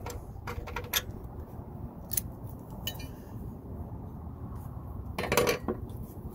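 Small metal hardware clicking and clinking as a bolt and its fastener are undone by hand from a hole in the truck's underbody, with a louder rattling clatter about five seconds in.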